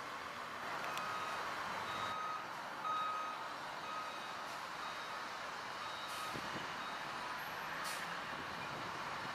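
Reverse alarm of a Peterbilt 320 hook-lift roll-off truck beeping about once a second as the truck backs up, fading out after about seven seconds. A short hiss comes near the end.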